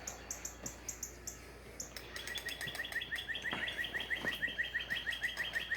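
Birds chirping: short high chirps repeating for the first couple of seconds, then from about two seconds in a fast run of repeated chirps, several a second.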